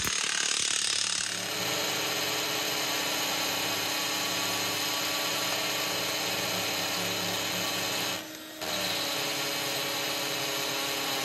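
About a second of an impact wrench hammering, then a Ridgid cordless drill boring into a concrete floor with a masonry bit, running steadily under heavy load. It stops briefly once about eight seconds in, then runs again. The drill is being worked until it overheats and burns out, smoking.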